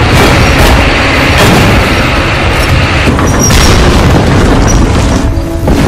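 Battle sound effects: several heavy booms of tank gunfire and shell explosions over a continuous loud rumble.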